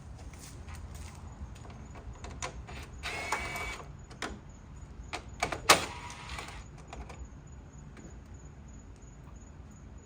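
The 7 mm screws are being taken out of a Ford Econoline's headlight bezel: a brief whir about three seconds in, then a series of sharp clicks and taps, the loudest just before six seconds.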